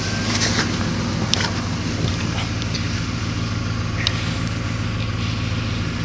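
Chevrolet Caprice engine idling steadily while it powers a 1500 W inverter as a backup generator, with a few light clicks over the hum.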